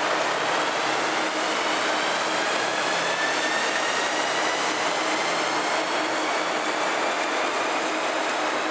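DB Class 110 electric locomotive pulling away, its traction motors whining in a slowly rising pitch over a steady rushing noise as the train gathers speed.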